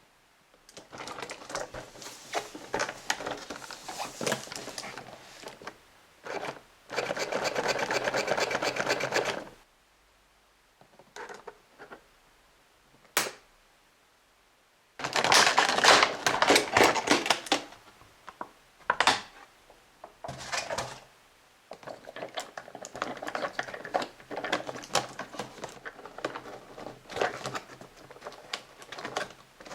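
Hands handling plastic Play-Doh toy parts and packaging: irregular bursts of clicking and rattling, including a few seconds of fast, even clicking, separated by short quiet gaps.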